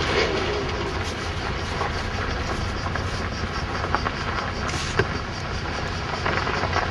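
A car driving slowly over a dirt road: a steady low rumble of engine and tyres, with a couple of short knocks about four and five seconds in.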